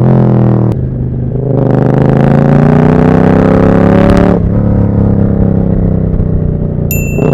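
Moto Morini Corsaro 1200 Veloce's V-twin through a Termignoni exhaust, accelerating through the gears. The engine note dips briefly about a second in, then climbs steadily, drops at a gear change about four seconds in, and climbs again. A brief high whistle sounds near the end.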